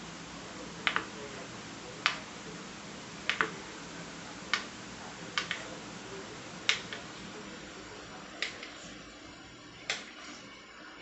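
Kitchen knife cutting a roll of yeast dough into pieces, its blade knocking sharply on the tiled countertop with each cut: about eight knocks, roughly one a second.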